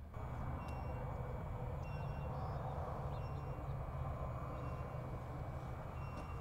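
Outdoor ambience: a steady low hum with a short high chirp repeating about every second and a half.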